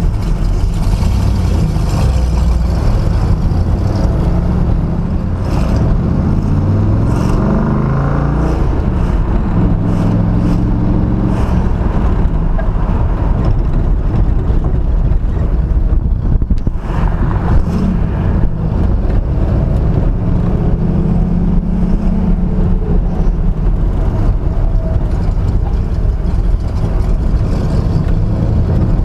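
1970 Dodge Challenger T/A's 340 Six Pack V8, heard from inside the cabin, accelerating through the gears of its four-speed manual. The engine note climbs, drops at a shift about halfway through, then climbs again.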